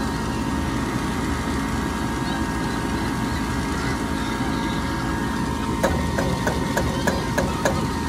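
Gas furnace giving off a steady mechanical hum with a few fixed tones, while a draft inducer that is probably not starting is tested on a no-heat call with an open pressure switch. Near the end comes a quick run of about eight sharp clicks, roughly four a second.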